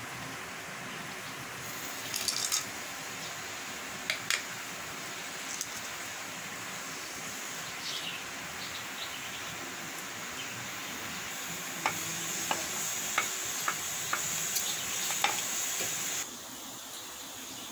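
Whole spices frying in hot oil in an aluminium pressure cooker: a steady sizzle with light crackles, a short clatter about two seconds in as the spices drop in, and later a run of taps and scrapes as a wooden spatula stirs them against the pot. The sizzle cuts off suddenly near the end.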